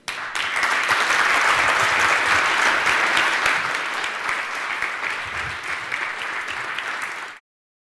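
Audience applauding: a dense patter of many hands clapping that starts at once, eases a little, then cuts off suddenly about seven seconds in.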